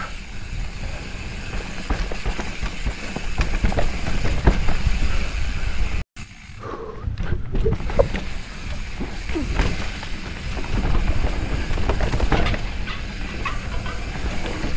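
Mountain bike ridden fast down dirt singletrack, heard from a helmet camera: wind buffeting the microphone, with tyre noise over dirt and leaf litter and the bike rattling over the bumps. The sound cuts out completely for a moment about six seconds in.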